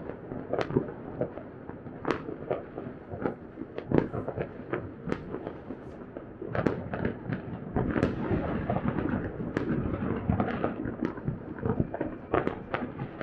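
Many fireworks going off across a city at once: irregular sharp bangs, roughly two a second, over a continuous rumbling crackle.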